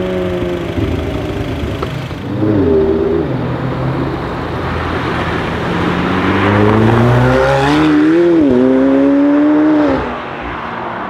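McLaren 720S twin-turbo V8 accelerating hard. The engine note first falls away, then there is a short burst of revs about two seconds in. A longer pull starting around five seconds climbs, dips briefly and climbs again, and cuts off sharply near the end.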